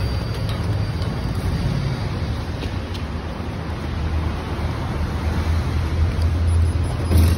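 Steady low rumble of traffic noise, with a short sharp knock near the end.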